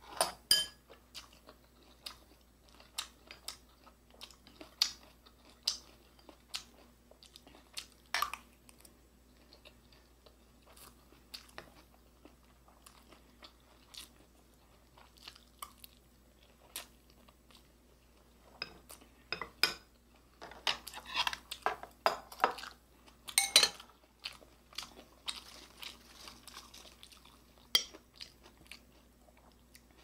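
Chewing and mouth sounds of someone eating fried beef and rice, with scattered sharp clicks of a metal spoon and chopsticks against ceramic bowls, busiest about two thirds of the way through.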